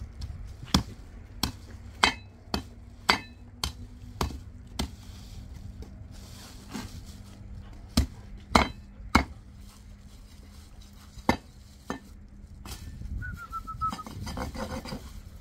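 A series of sharp knocks or strikes, about a dozen at irregular intervals, most bunched in the first five seconds and a few more later on. A short falling whistle, like a bird call, comes near the end.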